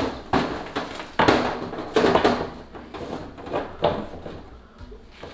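Irregular knocks, scrapes and rustles of a plastic-wrapped over-the-range microwave being handled and pushed into place against a wooden cabinet, busiest from about one to two and a half seconds in.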